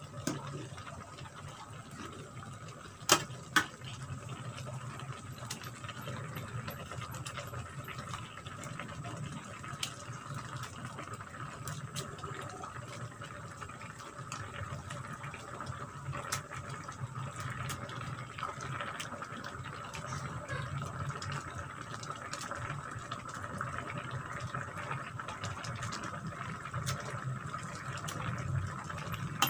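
Cassava leaves in coconut milk simmering in a pan, stirred with a metal spatula that scrapes and clicks against the pan, with two sharp knocks about three seconds in.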